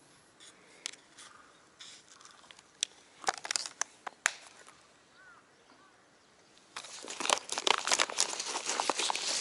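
Light clicks and rustles of a clear plastic tackle box being handled as a small rubber jig is taken out, then from about seven seconds in a louder, dense crinkling rustle of movement close to the microphone.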